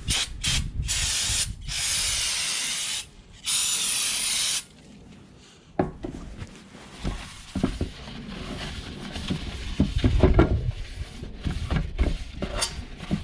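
Aerosol brake cleaner spraying into a metal transmission pan: a few quick short bursts, then three long blasts of about a second each. Then a paper towel wipes and rubs around inside the pan, with a few low knocks about ten seconds in.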